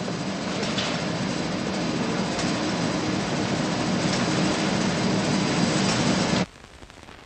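Coffee-roasting plant machinery running: a steady rushing noise over a low hum, cutting off abruptly about six and a half seconds in.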